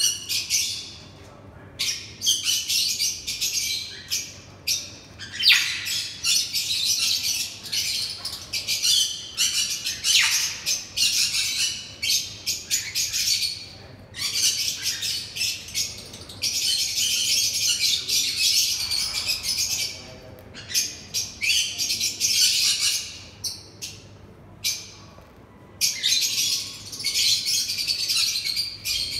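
Sun conures giving high, raspy squawks in quick repeated bursts, with one long unbroken stretch in the middle, while a pair mates.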